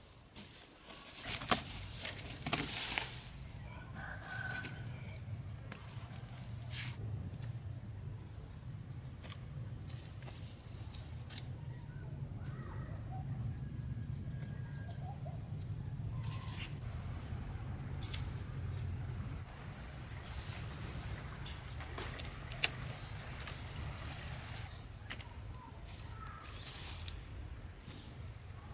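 Outdoor farm ambience: a steady high-pitched insect drone, louder for a couple of seconds about two-thirds of the way through, with a few knocks near the start and faint bird calls now and then.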